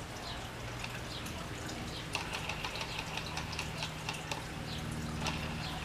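Faint small clicks and handling noise of a plastic self-tightening propeller being fitted onto a DJI Phantom 2 quadcopter's motor, over a steady low hum. A faint high steady tone sounds for about two seconds midway.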